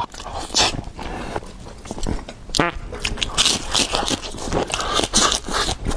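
Close mouth sounds of someone chewing juicy food: wet smacking and irregular clicks, with longer hissy slurping bursts in the second half.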